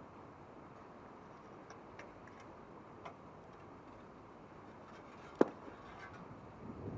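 Magnet-fishing rope and magnet being hauled in and handled: a few light ticks, then one sharp click about five seconds in, over a low steady hiss.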